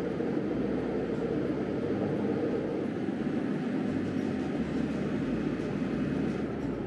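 Steady roar of a jet airliner in flight heard from inside the cabin at a window seat beside its Rolls-Royce turbofan engine: an even, deep rushing rumble of engine and airflow that holds level throughout.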